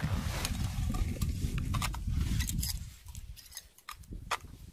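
A low rumble for about the first three seconds, then a few light clicks and taps as a metal ice-fishing groundbait feeder and its line are handled.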